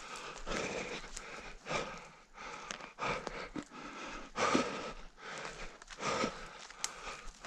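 An orienteer's running footsteps, a steady beat of about two footfalls a second, with panting breath between them.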